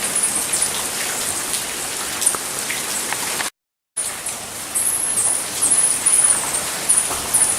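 Hummingbirds giving high, thin chirps, repeated many times and most thickly in the second half, over a steady rain-like hiss. The sound cuts out completely for half a second midway.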